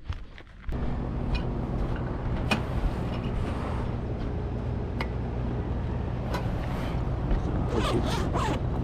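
A steady, low machine hum that starts abruptly just under a second in and holds even, with a few light clicks over it.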